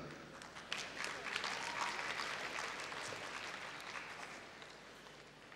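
Audience applauding, many quick claps that start loud and fade away over a few seconds.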